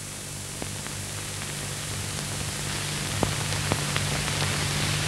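Noise of an old film soundtrack: a steady hiss that grows louder, a low mains-type hum, and scattered clicks and crackles.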